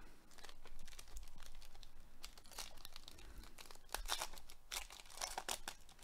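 Foil wrapper of a Panini Chronicles baseball card pack crinkling and tearing as it is ripped open by hand, in a series of rustling rips, loudest about four and five seconds in.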